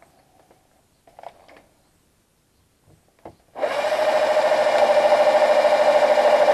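Faint handling clicks, then about three and a half seconds in an 18V cordless drill starts and runs steadily at speed with a steady whine. It is drilling out a broken stud in a small engine, enlarging the pilot hole to fit a bolt extractor.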